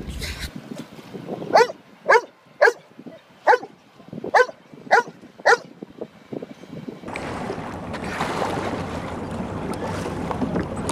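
A yellow Labrador gives seven short, high yips at a dolphin, roughly one every two-thirds of a second. About seven seconds in, a steady rush of wind and water from a moving boat takes over.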